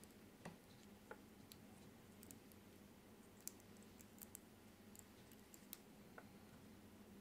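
Near silence: faint room tone with a low steady hum and a dozen or so faint, scattered small clicks.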